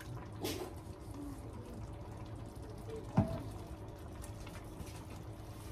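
Quiet kitchen background: a steady low hum with faint liquid sounds, and one sharp knock about three seconds in.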